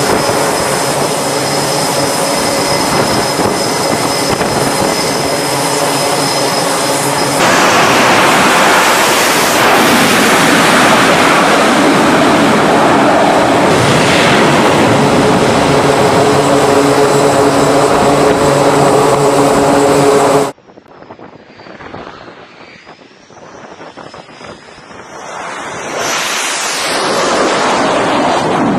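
F/A-18 Hornet jet engines running at high power on a carrier flight deck: a steady whine with several held tones, stepping up suddenly to a heavier roar about seven seconds in. The roar cuts off abruptly about 20 s in, leaving wind noise that swells again near the end as another jet sound builds.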